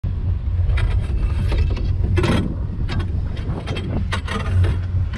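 Wind buffeting the microphone of a camera riding a moving chairlift: a steady low rumble, with scattered clicks and knocks, one louder about two seconds in.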